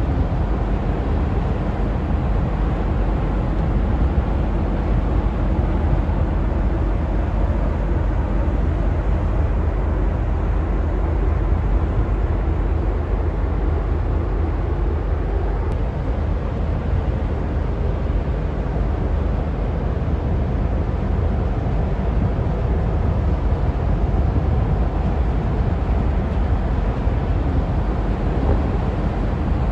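Large ocean-going cargo ship under way, its engine and propeller giving a low, steady rumble as it passes close by.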